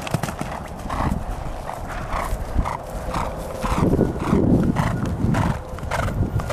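Horse cantering on grass under a rider, clearing a low cross-rail jump near the start: hoofbeats in a steady rhythm of about two strides a second, with a louder low rumble about four seconds in.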